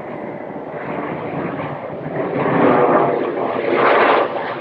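Delta Boeing 737-800 jet airliner rolling out on the runway just after touchdown, its engine noise swelling louder about halfway through.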